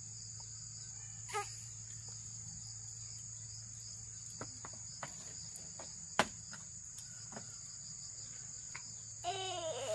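Steady high-pitched chirring of insects, with a low hum beneath, a few scattered sharp clicks, and a short pitched call near the end.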